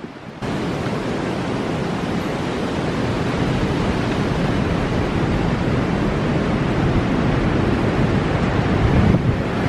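Violent storm wind rushing as a loud, steady noise with gusts buffeting the microphone. It starts abruptly about half a second in.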